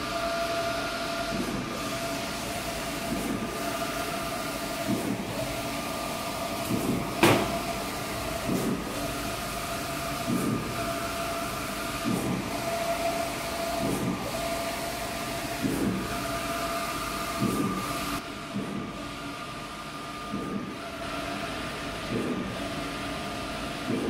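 Wide-format inkjet printer printing a vinyl banner: the print-head carriage runs back and forth with a steady whine, a pass about every two seconds. A single sharp click comes about seven seconds in.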